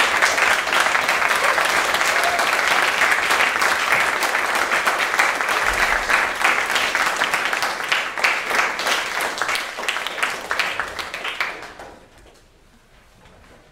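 Audience applauding in a small hall. Steady applause thins into scattered claps and dies away about twelve seconds in.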